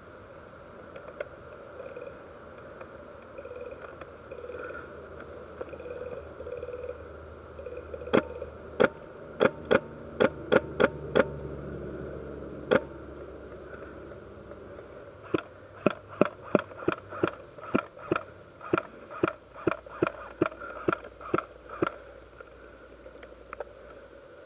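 Airsoft guns firing sharp single shots in quick succession: a string of about eight, then after a short pause a steadier run of about three shots a second lasting some six seconds.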